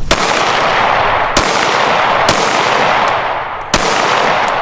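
Four pistol shots fired about a second apart, each a sharp crack followed by a long echoing wash.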